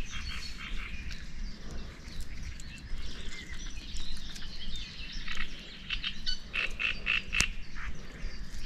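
Outdoor chorus of small birds chirping and frogs calling, with a run of about five quick repeated calls near the end. A single sharp click sounds about seven and a half seconds in.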